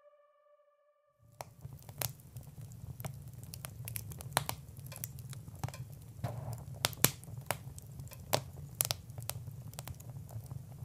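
Outro sound effect: a steady low rumble with irregular crackles and pops scattered over it, starting about a second in.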